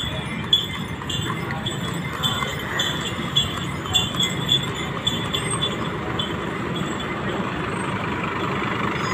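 A Transjakarta city bus drives past with its engine running over steady street-traffic noise, growing louder toward the end. Light metallic jingling comes and goes through the first two-thirds.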